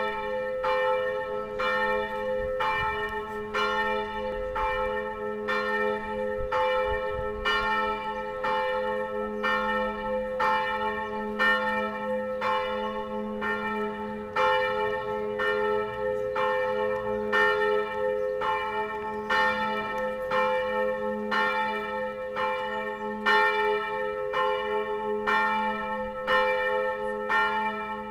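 Church tower bells ringing steadily, struck about once every two-thirds of a second, each strike ringing on into the next over a constant low hum.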